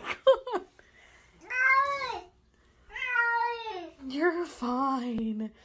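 A wet cat in a bathtub meowing over and over: about four long, arching meows with short pauses between them, the last one lower in pitch. The meows come across as words, read as "I'm cold, I'm cold, Mari."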